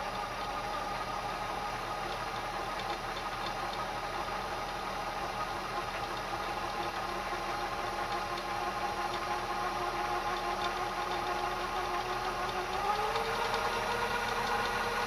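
Kenmore 158 sewing machine's electric motor running steadily, driving the bobbin winder with the hand wheel declutched. Its pitch steps up slightly about thirteen seconds in.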